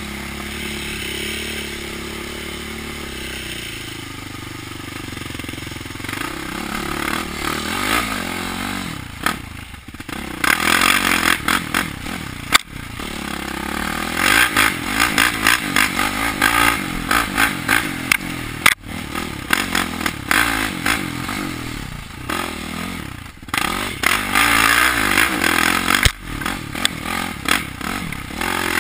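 Quad (ATV) engine revving up and down at speed on a dirt trail, with water spraying as it runs through a creek at the start. Loud rushing and clattering come and go from about ten seconds in.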